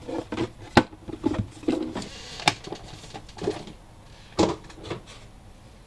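Cardboard pieces and a grey-board box being handled on a cutting mat: a few sharp knocks and taps as they are set down and moved, with some brief sliding and rustling.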